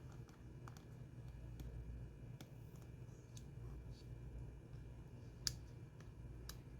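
Scattered small sharp clicks and taps from handling a phone and its parts during reassembly, the sharpest about five and a half seconds in, over a steady low hum.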